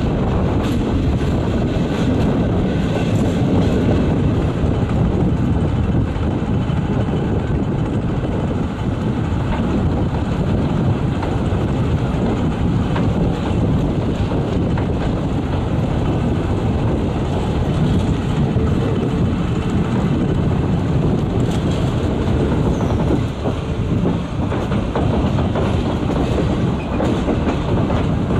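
Vintage passenger coaches rolling along at speed, heard from an open window of the train: a steady, loud rumble of wheels on the rails with light clicking.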